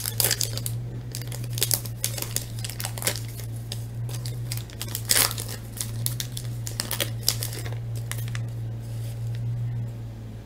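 Foil wrapper of an Upper Deck Artifacts hockey card pack crinkling and tearing as it is ripped open by hand, in irregular crackles. A steady low hum sits underneath.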